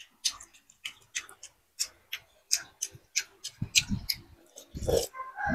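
Close-up eating sounds: chewing with a quick irregular series of wet mouth clicks and lip smacks, then slurping noodle broth from a spoon in two louder bursts, the second near the end.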